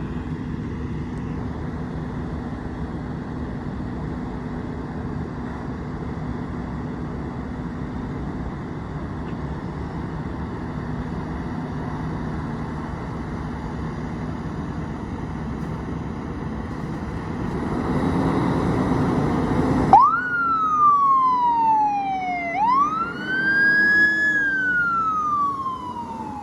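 Fire engine running with a steady rumble that grows louder for the last couple of seconds before the siren. Then its siren starts wailing, each cycle rising quickly and falling slowly, about every three seconds.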